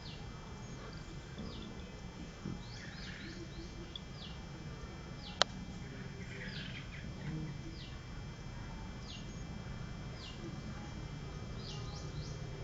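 Birds chirping: short high notes that fall in pitch, repeated every second or so over a low steady background hum, with a single sharp click about five seconds in.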